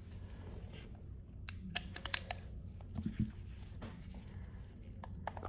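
Glock 19-style rubber-bullet pistol being handled: a quick run of sharp mechanical clicks about a second and a half in, then a dull knock about three seconds in.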